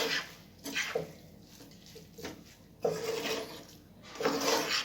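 A spoon stirring noodles in a pan of liquid, in a few separate wet, scraping strokes about a second apart.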